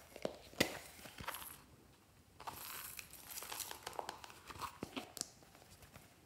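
A small handbag being handled and opened: rustling and crinkling of its material, with a few sharp clicks about half a second in, about a second in and near five seconds.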